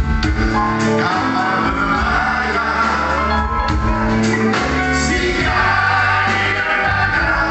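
Live band playing a song, a singer's voice over held chords, with drums keeping a steady beat.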